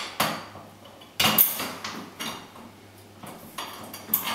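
Metal clinks and clacks of a steel bar-type French door handle lock being fitted over the door's lever handles. The loudest clack comes a little over a second in, with smaller clicks near the end.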